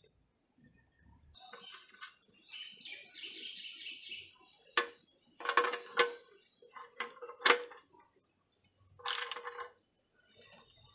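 Ratchet socket wrench tightening the oil sump drain plug after an oil change: sharp metallic clicks in several short bursts over a few seconds.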